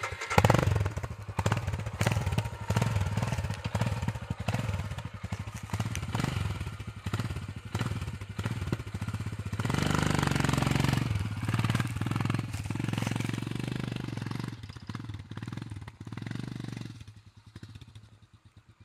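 Motorcycle engine running under uneven throttle as the bike rides off over rough ground, with a steadier, louder stretch of revs about ten seconds in. The engine sound drops away about seventeen seconds in as the bike moves off into the distance.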